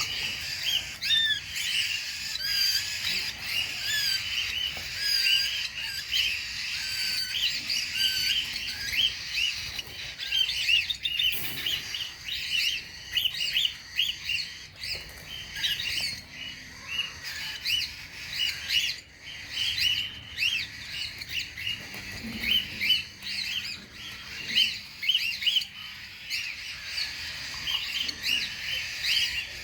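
Many cockatiels chirping and calling at once, a constant stream of short, overlapping chirps with occasional harsher squawks.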